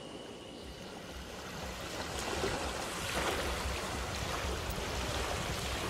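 Outdoor wind noise: a steady rush with low buffeting of wind on the microphone, getting louder about two seconds in.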